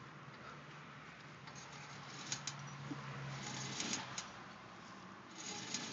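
Faint clicks and a light rattle, like a marble dropping, from a car's front hub and brake assembly with the wheel off, amid soft hissing. The owner suspected the brakes, but the pads are not worn down to metal.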